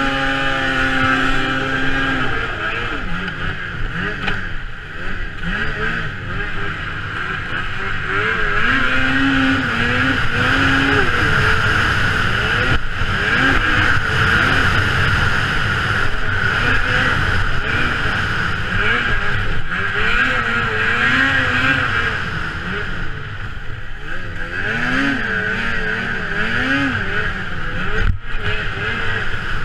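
Racing snowmobile's engine at hard throttle, its pitch rising and falling again and again as the rider works the throttle through the course, over a steady rush of track and wind noise heard from onboard.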